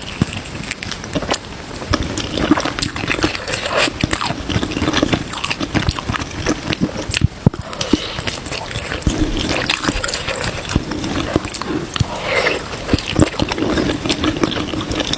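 Close-miked eating: wet, irregular chewing and lip-smacking with slurps, full of small clicks.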